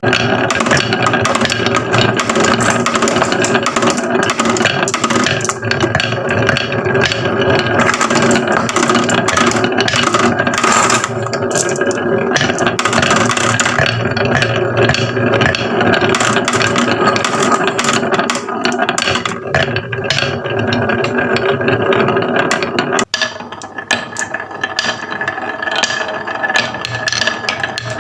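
Marbles clattering continuously down a toy marble run, a dense rattle of many small clicks over a steady mechanical hum. It breaks off briefly about 23 seconds in, then carries on.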